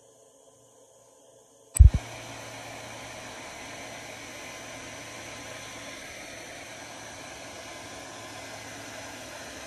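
Handheld hair dryer switched on about two seconds in, with two loud thumps as it starts, then running steadily: an even blowing hiss over a low hum.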